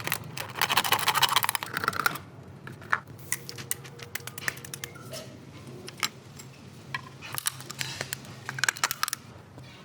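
Rapid clicking in two bursts, one in the first two seconds and another from about seven to nine seconds in, over a faint low steady hum.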